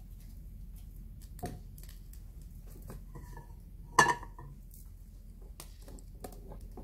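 Nonstick frying pan moved on a gas stove grate: a few light clicks and one sharp metallic knock about four seconds in, over a low steady hum.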